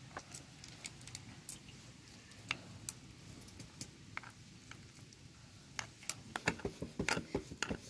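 Metal spoon scraping and clicking inside a crab shell while scooping out the yellow crab fat over a steel bowl. Light clicks and clinks are scattered throughout and come faster near the end.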